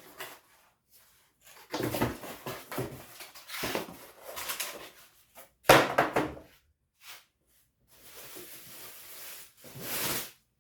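Unboxing handling noises: cardboard and packing material rustled, rubbed and shifted in uneven bursts, with one sharp knock a little over halfway through.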